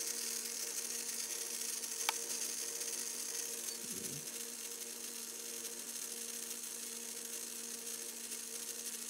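Small DC motor running steadily with a hum, turning a small pinion meshed with a 60-tooth plastic spur gear in a gear-reduction test. One sharp click about two seconds in.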